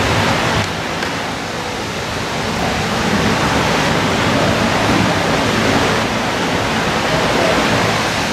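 Steady, loud rushing hiss of room noise with no distinct events.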